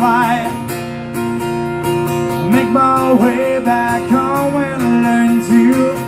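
Acoustic guitar strummed steadily while a male voice sings long held notes that waver in pitch.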